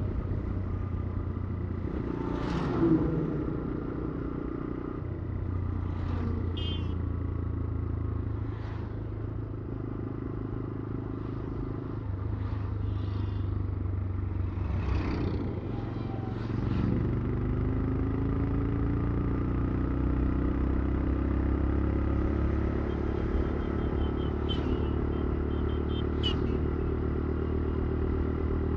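Motorcycle engine running steadily while riding, rising in pitch and getting louder about 17 seconds in as it accelerates.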